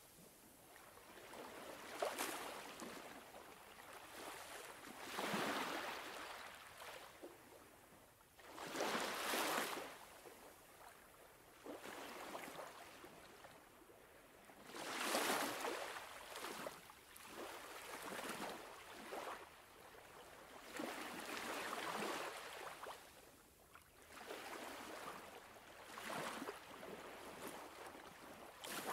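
Sea waves washing against the rocks of a breakwater, each wash swelling and fading over a second or two, recurring every few seconds.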